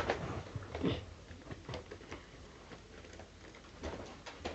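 Light plastic clicks and taps from a Nerf blaster and its snap-on attachments being handled, scattered irregularly, with a few sharper ones about a second in and near the end.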